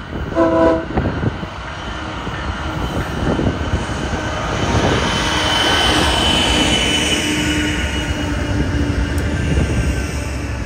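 Diesel-electric freight locomotives passing close by under power, a heavy engine rumble with wheels running on the rails, growing loudest as the units go by. A short horn toot comes about half a second in.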